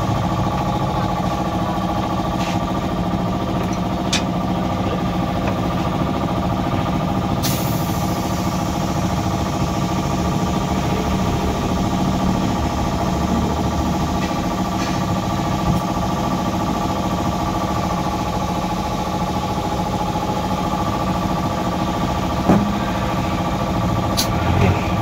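A motor running steadily at an even pitch throughout, with a few light clicks and a knock.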